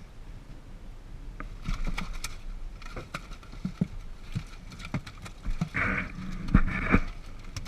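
Irregular knocks and thumps on a small fishing boat over the boat's steady background noise, with the two loudest thumps about half a second apart near the end.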